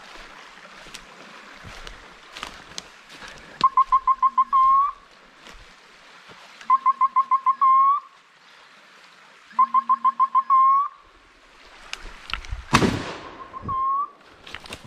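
Hunting dog's electronic beeper collar sounding three times, about three seconds apart: each a quick run of high beeps ending in a rising squeal, the point-mode signal that the dog is holding a bird. Then a loud shotgun shot near the end, and a second shot as it ends.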